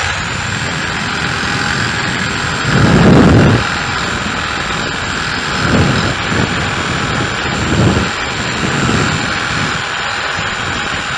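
Reciprocating saw running with a steady high motor whine, cutting through the metal sleeve of an old engine mount. The cutting noise swells heavier several times as the blade bites, most strongly about three seconds in.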